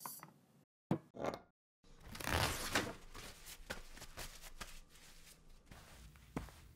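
Paper towel torn from a roll and rustled while hands are dried, a dense crackling rustle about two seconds in. Scattered footsteps and taps follow, with one heavier low thud near the end.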